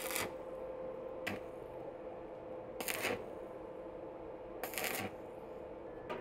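Stick-welding arc crackling in five short bursts as tack welds are struck on the hinges of a steel drum's door, over a steady low hum.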